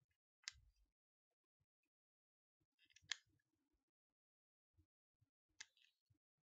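Near silence broken by three faint, short clicks, about two and a half seconds apart.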